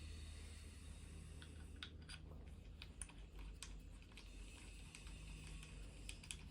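Faint light clicks and taps, scattered irregularly over a low steady hum, with a few more near the end.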